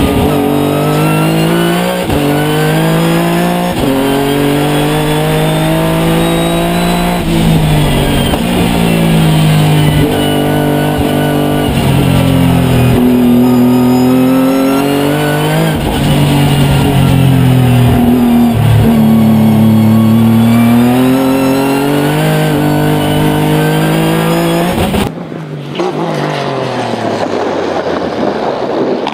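Hawk Performance Nissan GT-R R35's twin-turbo VR38DETT V6 heard from inside the cabin, pitch climbing and dropping again and again as it accelerates, shifts and lifts between corners. Near the end it cuts to the car heard from the roadside, quieter.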